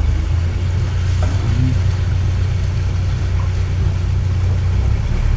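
Engine of a Kent 28 motorboat running steadily under way, a continuous low drone.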